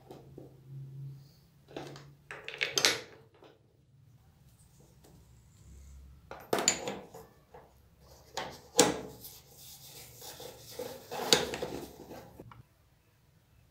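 Metal clinks and scraping as a long T-handle socket wrench is worked on a motorcycle's handlebar clamp bolts, tightening the handlebar back down over new steering-head bearings. There are a few sharp clanks spread through it, and a longer stretch of rubbing and scraping in the second half.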